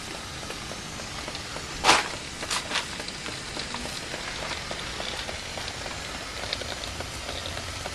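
Water hissing and dripping from leaking pipe fittings on an electric water heater tank under garden-hose pressure, about 10 psi, with a sharp tap about two seconds in and a couple of smaller ones just after.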